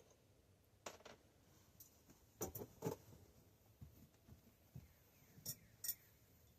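Light clicks and clinks of hand tools and bicycle parts being handled during a strip-down, with quiet between: one about a second in, a quick group of three around the middle, and two more near the end.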